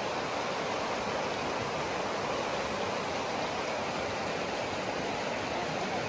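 Steady rush of flowing river water, an even noise with no breaks.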